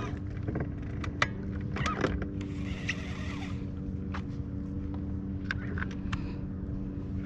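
A boat motor hums steadily at a constant pitch, with scattered light clicks and taps on top and a short hiss about three seconds in.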